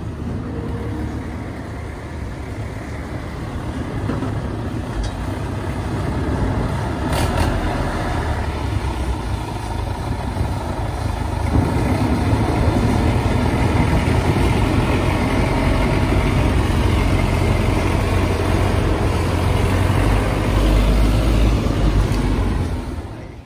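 David Brown 995 tractor's three-cylinder diesel engine running steadily while towing a trailer heavily loaded with firewood logs. It gets louder and deeper about halfway through.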